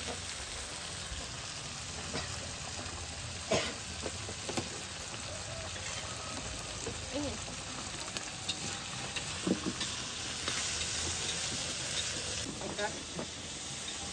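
Food frying and sizzling in a wok while a metal spatula stirs it, with scattered scrapes and clicks of the utensil against the pan. The sizzle grows louder for about two seconds past the middle.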